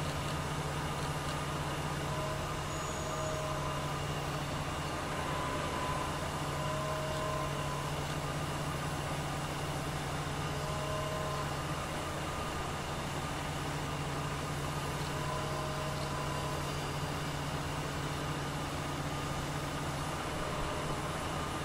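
Diesel engine of the mobile crane holding the suspended locomotive body, running steadily at a constant speed.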